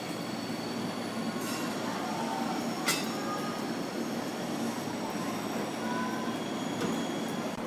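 JR 205 series electric train running at the station platform: a steady rumble of motors and wheels on the rails, with one sharp click about three seconds in.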